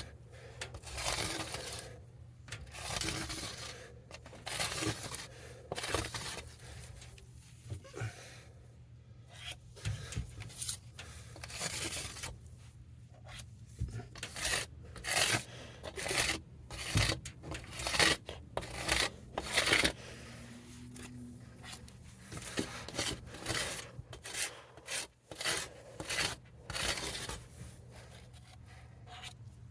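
Repeated short scraping strokes across the acid-etched surface of a PC case panel, irregular in pace and strength, with brief pauses between runs of strokes.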